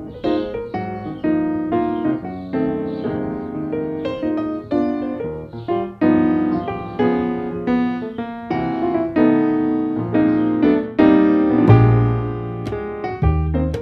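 Background piano music: a gentle run of struck notes, each ringing and fading, with deep bass notes joining near the end.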